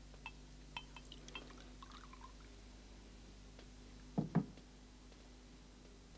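Light glass clinks as a water glass and glass carafe are handled, with a little water poured. About four seconds in come two dull knocks in quick succession, loud against the rest.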